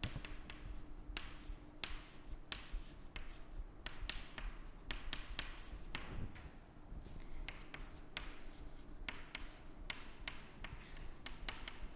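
Chalk tapping and scratching on a chalkboard as words are written, in short irregular strokes.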